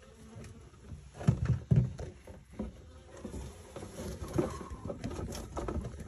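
Honey bees buzzing around a colony being cut out of a camper's wall cavity, with two dull thumps about a second and two seconds in and scattered knocks from the work.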